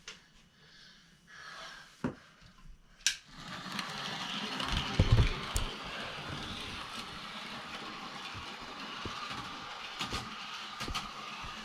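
A Bachmann Paxton model train locomotive running on its track, its motor and wheels making a steady whir that starts about three and a half seconds in after a couple of sharp clicks. There are a few low knocks shortly after it starts and several light clicks near the end.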